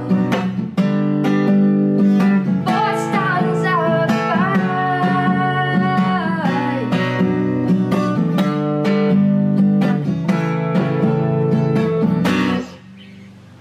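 Acoustic guitar with a capo strummed in a steady rhythm while a woman sings along, her voice strongest in the first half. The song stops abruptly about a second before the end, leaving only quiet room tone.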